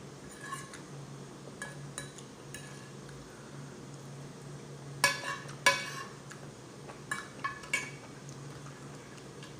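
Fork clinking and scraping on a plate while eating: a few light clicks, then two sharper clinks about five seconds in and a few smaller ones after. A low steady hum runs underneath.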